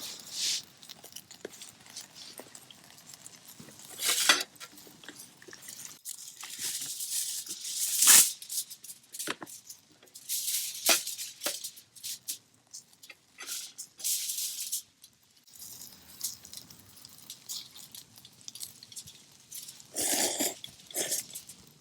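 Irregular rustling and crackling with scattered sharp clicks and light clinks, from food and utensils being handled over a small wood fire.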